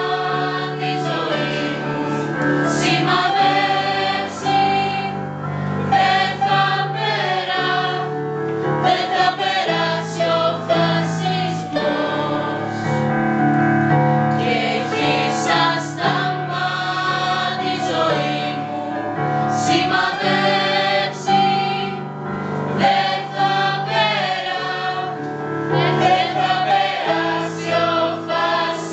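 A group of teenage students, mostly girls, singing a song together in unison, accompanied by a digital piano.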